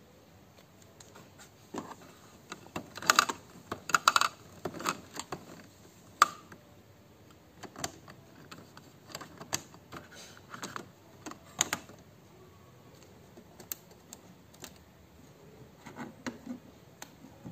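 Irregular plastic clicks and taps from hands working the ink-tank caps and covers of an Epson L3210 printer. They are loudest in a cluster about three to four seconds in, with one sharp click around six seconds.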